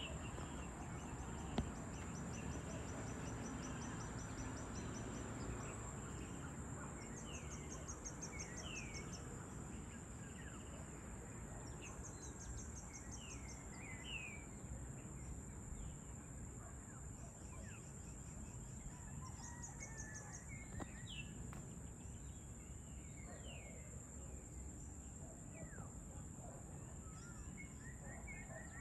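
Evening outdoor ambience: a steady high-pitched insect drone, with scattered short bird chirps and several bursts of rapid ticking trills, over a low background rumble. A single sharp click about a second and a half in.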